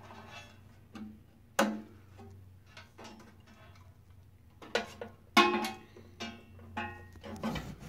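Irregular clicks and knocks of wires and connectors being handled against a 3D printer's metal case, a few of them ringing briefly; the loudest comes about five and a half seconds in. A low steady hum lies underneath.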